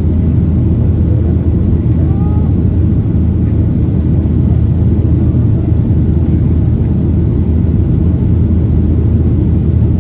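Steady low rumble of a Boeing 737-800 in flight, heard inside the passenger cabin: the drone of its CFM56-7B turbofan engines mixed with airflow over the fuselage.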